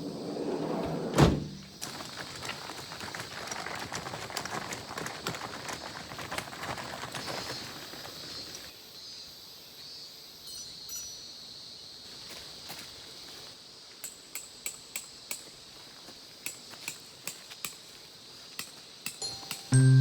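Steady high-pitched chorus of insects and cicadas, with a single sharp knock about a second in, rustling for several seconds, and then a run of light clicks or taps in the second half.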